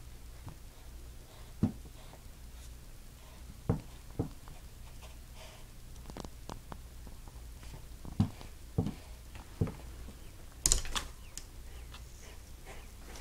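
A cat's paws tapping and knocking against a window pane and sill: about eight scattered knocks at uneven intervals, the loudest a little after ten seconds in, over a faint steady low hum.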